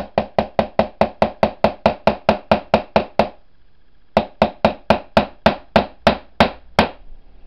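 Hammer driving a nail into the end of a thin wooden moulding strip: a quick run of even taps, about five a second, a pause about three seconds in, then a second run of taps that slows slightly before stopping. The strip does not split.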